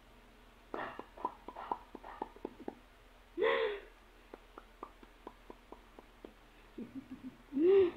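Playful mouth sounds: a run of short tongue clicks at about three to four a second, twice, and two brief rising-and-falling 'ooh' calls, the second one louder, near the end.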